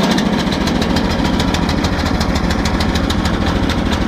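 Karakat's engine idling steadily just after it has been started, with a rapid even firing beat.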